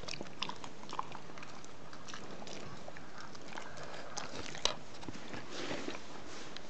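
German shepherd snuffling after flies: scattered light clicks and taps from the dog, with one sharper click a little under five seconds in.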